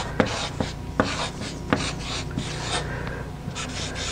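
Marker writing on a large sheet of chart paper: scratchy strokes with a few sharp taps as the tip meets the paper, easing off briefly a little past the middle.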